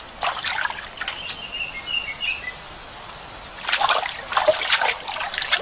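Water splashing and trickling as chimpanzees wade and move about in a shallow pool, in bouts near the start and again in the second half. A bird chirps a few times about two seconds in.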